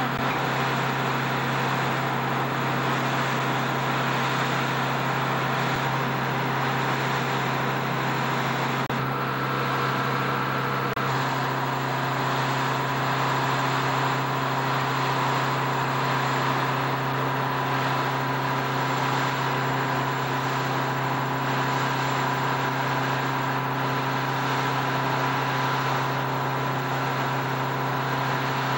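Steady mechanical drone of airport ground support equipment running: a strong low hum with a steady higher whine over it.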